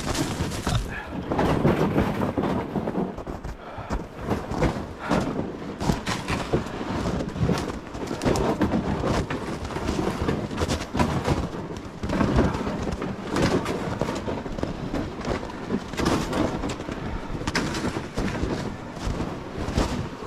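Footsteps crunching and rustling through snowy brush, irregular and close, on a walk through the woods.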